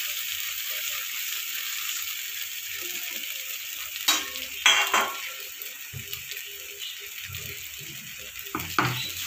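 Oil sizzling in a kadhai as soaked poha (flattened rice) is tipped onto the fried onions and peanuts and stirred in with a wooden spatula. A few sharp knocks of utensils against the pan, about four to five seconds in and again near the end.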